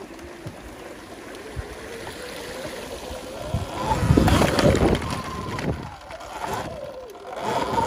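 Segway X260 electric dirt bike riding over a rocky dirt trail: the electric motor's whine rises and falls in pitch with the throttle, under a rush of rattling and wind noise that swells loudest about four seconds in.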